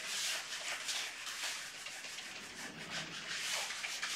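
Felt whiteboard eraser wiping across a whiteboard in repeated back-and-forth strokes, a dry swishing rub about twice a second.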